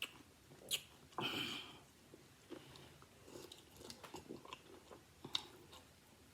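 Close-miked chewing and mouth smacking on a mouthful of food, with scattered small clicks and one louder crunching bite a little over a second in.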